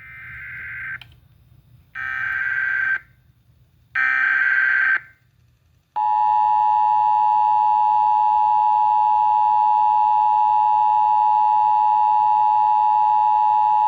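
Emergency Alert System activation over FM radio: three one-second bursts of SAME digital header data tones, a second apart, the first already under way, then the steady two-tone EAS attention signal held for about eight seconds. Together they announce a flash flood warning.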